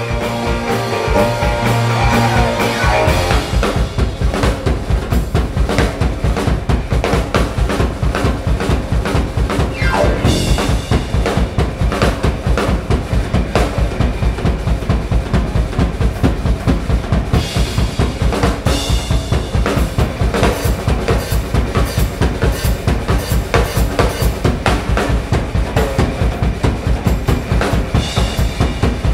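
Drum kit solo played live: a fast, even bass drum pulse under snare and tom fills, with cymbal crashes now and then. The band's held notes fade out in the first few seconds as the drums take over.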